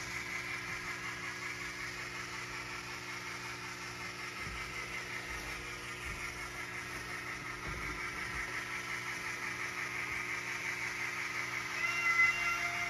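Sound-equipped N-scale model locomotive playing its running sounds through its small onboard speaker as the train passes. About twelve seconds in, its high-pitched whistle sounds as a chord of several steady tones.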